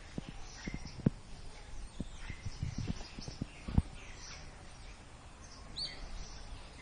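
A scatter of sharp knocks and clicks through the first four seconds, the loudest about a second in and near four seconds, with birds chirping faintly throughout and one clearer chirp near the end.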